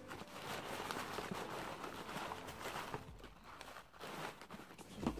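Packaging rustling and crinkling as wrapped items are pulled out of a cardboard box, a dense run of small crackles that eases off for about a second around three seconds in.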